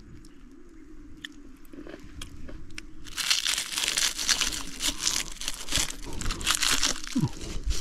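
A kitchen knife cutting through the shell of a cooked crayfish, a dense crackling crunch of shell breaking that starts about three seconds in, after a few faint clicks.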